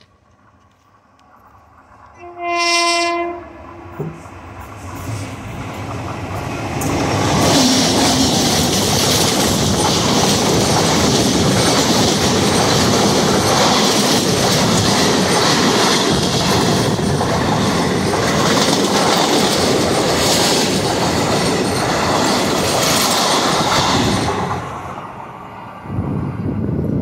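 The horn of a WAG9HC electric locomotive sounds one blast of about a second. The express then passes close by, the coaches' wheels clattering over the rails in a loud, steady rumble for about seventeen seconds. The rumble drops away suddenly as the last coach goes by.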